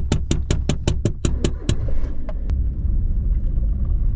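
A fast run of sharp even hits, about five a second, that stops a little under two seconds in. Then comes the steady low rumble of a car being driven, heard from inside the cabin.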